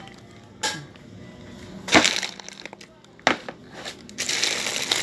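Tin cans of food set down hard on a table, three sharp knocks, then plastic grocery packs crinkling near the end.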